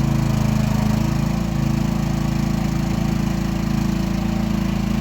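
Small engine of a Chinese-made mini excavator running steadily, its note shifting slightly about a second and a half in.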